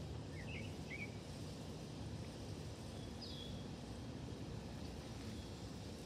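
Outdoor ambience: a steady low rumble, with a few short bird chirps about half a second in and a single falling bird call about three seconds in.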